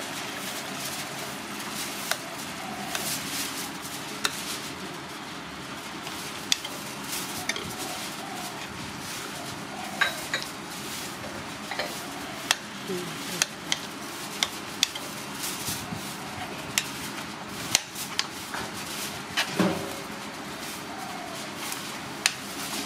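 A metal ladle stirring a saucy dish in a metal pot, clinking and scraping against the pot in irregular knocks over a steady hiss.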